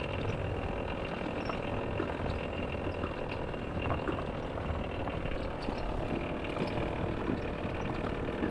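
A motor vehicle's engine running steadily at a low, even speed.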